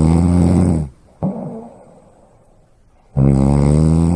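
Loud snoring: a long, steady, pitched snore that ends about a second in, a short sharp breath just after it, and a second long snore starting about three seconds in.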